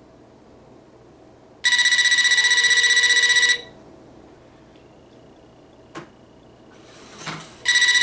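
AT&T 4200 cordless phone ringing on an incoming call: its electronic ringer gives a fast warbling trill of about two seconds, then starts a second ring near the end.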